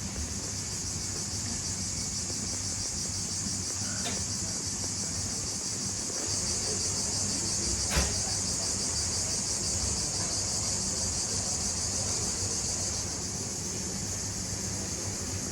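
Dense, steady insect chorus, a high shimmering chirr. One sharp click comes about halfway through and a fainter one a few seconds earlier.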